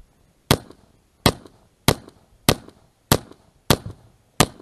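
Seven pistol shots fired at an even pace, about two-thirds of a second apart, each a sharp crack followed by a short echo.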